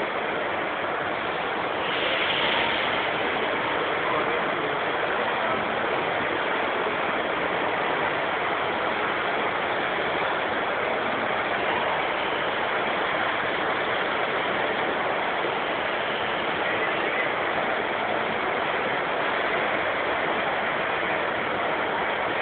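Steady, even din of a busy exhibition hall, with no distinct sounds standing out.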